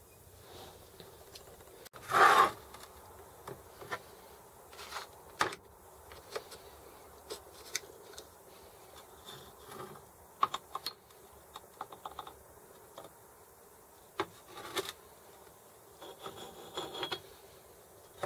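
Greasy steel parts of a Sturmey-Archer S5C internal gear hub handled during disassembly: scattered clicks, clinks and scrapes as the hub is turned in the hands and the gear unit is worked out of the shell. A louder scrape comes about two seconds in, and a short rattling run near the end.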